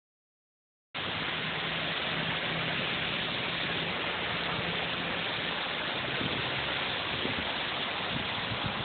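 Steady rushing noise of a storm, wind and rain over a wet street, with a faint low hum underneath during the first few seconds. The sound starts abruptly about a second in, after silence.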